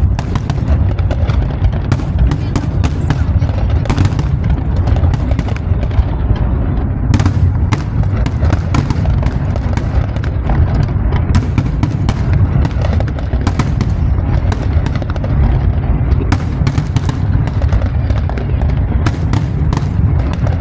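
Fireworks going off in quick succession: many sharp bangs and crackles over a constant deep rumble.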